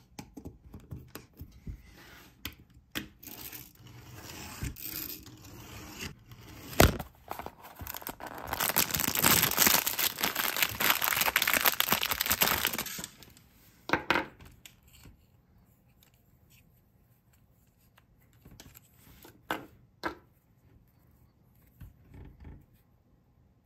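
Toy packaging handled and torn open by hand. Scattered clicks and light taps, one sharp knock about seven seconds in, then about five seconds of steady tearing, followed by a few isolated clicks.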